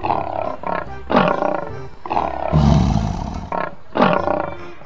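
Male lion roaring: a series of loud roars about a second apart, some falling in pitch, with shorter grunts between them.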